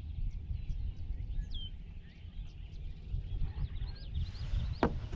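Open-air ambience: a constant low rumble with small birds chirping, one giving a short falling whistle about a second and a half in. A single sharp click near the end.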